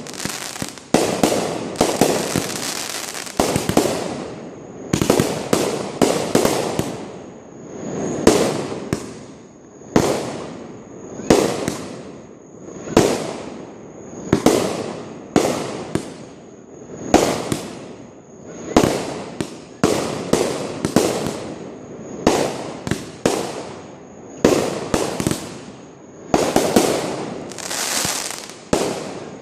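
Fireworks going off one after another, a sharp bang about every second or so, each trailing off over about a second, sometimes several in quick succession.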